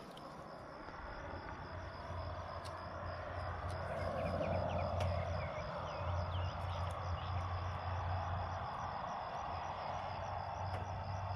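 Crickets chirping in a steady pulse, about four chirps a second, over a low steady hum and a soft rushing background, with a few faint clicks.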